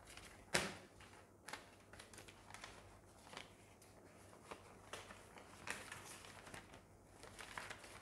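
Faint rustling and clicking of paper ballots and envelopes being handled during the vote count, with a sharper snap about half a second in.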